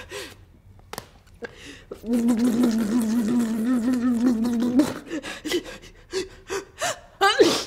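A woman with a cat allergy hums a long, slightly wavering "mmm" for nearly three seconds, then takes several short gasping breaths, the sharpest near the end.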